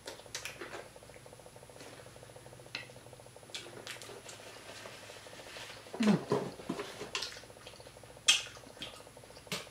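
Close-miked eating sounds: chewing fried croaker fish, with wet lip smacks and fingers sucked clean. Scattered small clicks and crackles, a denser run of chewing about six seconds in, and a sharp click a little after eight seconds.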